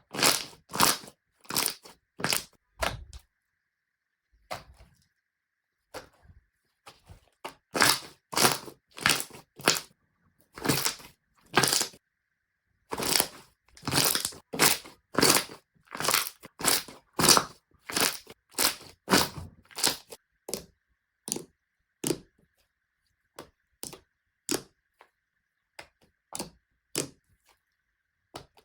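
Slime being pressed and squeezed by hand, giving a series of short crackling, crunching pops, a few a second in clusters. There is a short pause around four to six seconds in, and the pops come more sparsely near the end.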